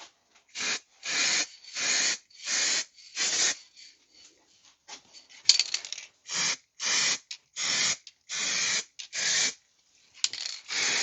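Aerosol spray adhesive sprayed in about ten short bursts onto seat fabric and foam, coating both surfaces with contact glue. There is a pause with a few sharp clicks around the middle.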